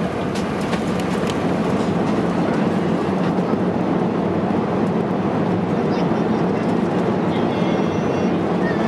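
Cabin noise of an Airbus A380 on the runway at touchdown and rollout: a loud, steady rumble from the landing gear and engines, with a few rattles in the first second or so.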